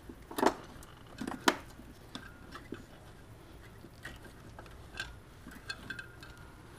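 Scattered light metallic clinks and knocks as a MINI Cooper S cylinder head, off the engine, is lifted and handled; the two loudest knocks come within the first second and a half, with fainter clicks after.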